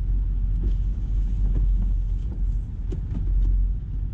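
Mitsubishi Delica L400 van with a swapped-in 1UZ-FE V8, heard from inside the cabin while driving: a steady low rumble of engine and road noise, with a few light ticks and knocks.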